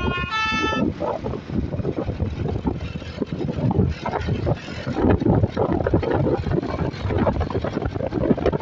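A multi-tone 'telolet' basuri bus horn playing a stepping tune that cuts off about a second in, followed by the rumble of a vehicle engine and road noise with wind buffeting the microphone.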